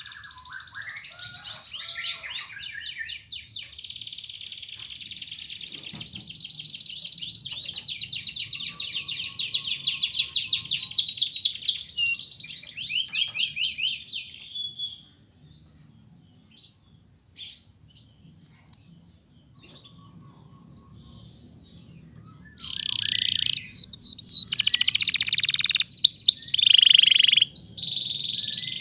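Domestic canary singing long, fast rolling trills for about fourteen seconds. A pause of several seconds follows with only a few scattered chirps, and then the song starts again with quick trills and held whistled notes.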